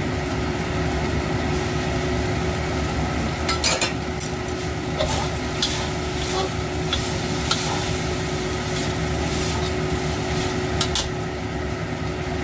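Rice vermicelli being stir-fried in a stainless steel wok: a metal spatula and spoon scrape and clink against the wok every second or so over a steady sizzle.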